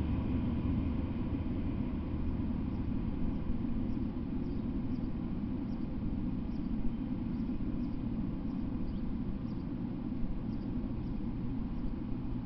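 Low rumble of a freight train that has just passed, fading slowly as it moves away along the track, with faint high chirps now and then.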